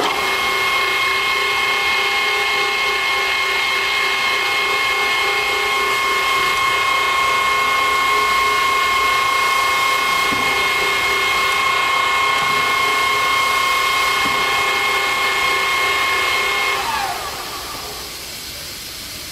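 Wilton 2456 geared-head drill press switched on, its drive coming up at once and running with a steady high-pitched whine. Near the end it is switched off and coasts down, the whine falling in pitch and fading over about a second, leaving a steady hiss.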